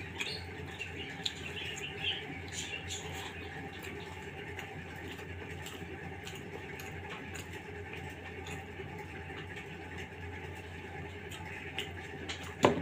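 Close-miked eating sounds: soft, moist clicks of fingers mixing khichuri rice and of chewing, over a steady low hum. Near the end comes a single sharp knock of a bowl against the metal plate.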